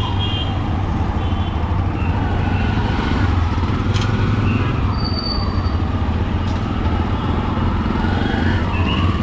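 City street traffic: engines of passing motor vehicles such as motorcycles run under a steady low hum and a dense wash of street noise, with a short high beep about five seconds in.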